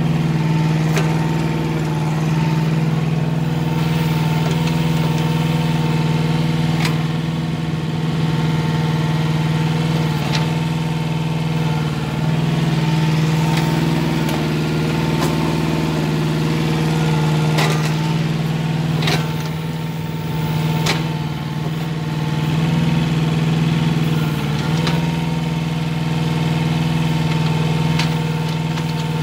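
Hanix mini excavator's engine running steadily as the machine digs, with a few sharp knocks from the working arm and bucket standing out now and then.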